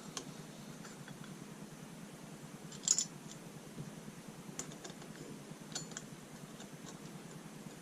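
A few light clicks and taps of small metal parts and bolts being handled on a table, over faint room tone; the sharpest click comes about three seconds in.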